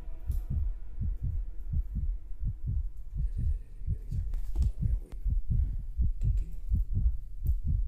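Low, dull thumps repeating evenly at about four a second, like a rapid heartbeat.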